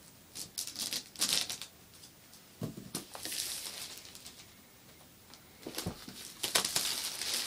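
Clear plastic shrink-wrap crinkling and crackling in bursts as it is cut and peeled off a cardboard iPad 2 box, with a couple of soft thumps as the box is handled and turned over.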